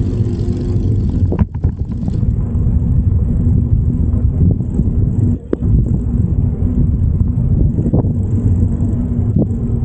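Steady low rumble of wind and road noise on a microphone riding along on a bicycle, with a few brief clicks and knocks.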